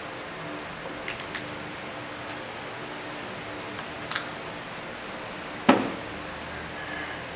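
Soft clicks and taps of a kitchen knife cutting a block of butter in its paper wrapper on a wooden board, over a faint steady room hum. Then one loud knock about two-thirds of the way through, as something is set down on the countertop.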